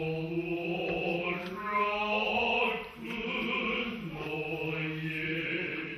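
Noh chant (utai) sung by the chorus of men's voices in the Kita-school style: long drawn-out syllables on a slowly wavering pitch, with a short break about halfway through.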